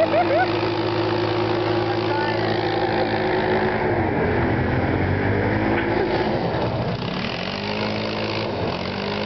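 ATV engine held at high revs. Its pitch sags briefly about four seconds in and again near seven seconds, then climbs back.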